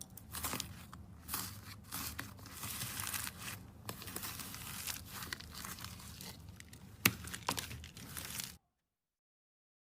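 Slime being squished and stretched by hand: continuous crackling and crinkling with many sharp clicks and pops, one loud pop about seven seconds in, then the sound cuts off abruptly.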